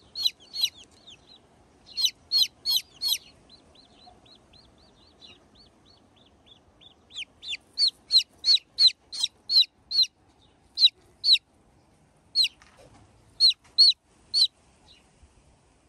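A domestic chicken chick peeping: short, high, loud peeps in quick runs of three or four a second, with softer peeps between the runs and spaced single peeps near the end.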